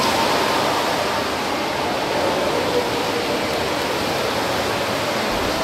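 Steady, echoing wash of splashing water in an indoor swimming pool as a field of backstroke swimmers push off and kick away from the start wall.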